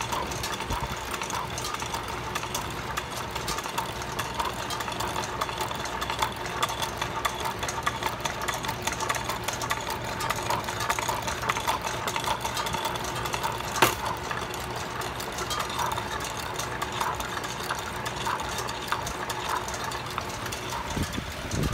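Fan-driven wooden whirligig merry-go-round running: a steady, fast clatter of its wooden gears and moving carved figures over a steady hum. One sharp click about 14 seconds in.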